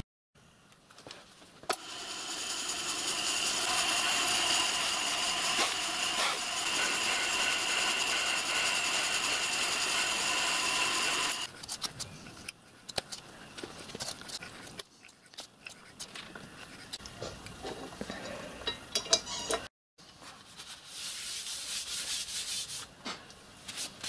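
Hand metalworking in short edited shots: first a long steady rasping, then scattered small clicks and scrapes of a tap being worked into a metal part with a tap wrench, then steel rubbing and scraping on a cast-iron surface plate.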